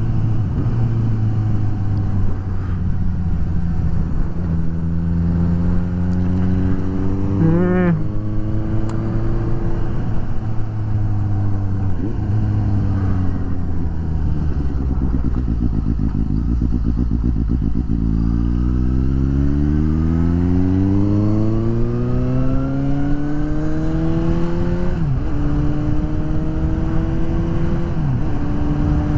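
Suzuki GSX-S750's inline-four engine running under way. The revs fall about ten seconds in, then climb steadily from around eighteen seconds, with a gear change near twenty-five seconds.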